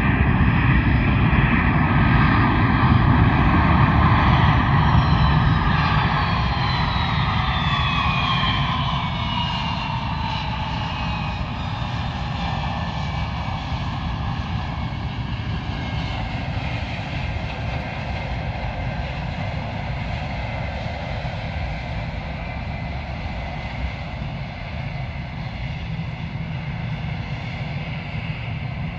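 Jet airliner's rear-mounted engines, the Delta Boeing 717 type, rumbling with a whine that falls in pitch as the sound fades over the first dozen seconds, then a steadier, quieter rumble as the jet rolls along the runway.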